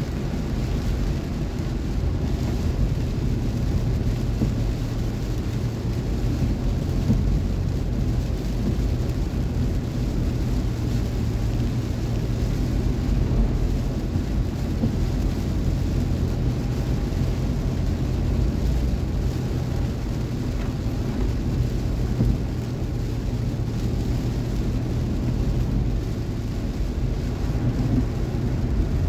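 Steady low rumble of a car driving in the rain on a wet road, heard from inside the cabin: engine, tyre and rain noise blended into one even roar.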